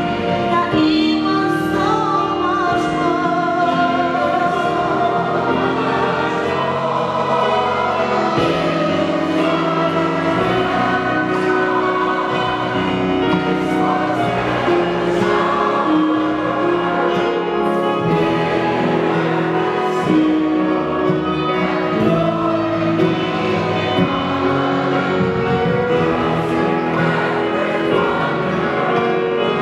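Choir singing with instrumental accompaniment, a steady sustained texture of held chords and melodic vocal lines.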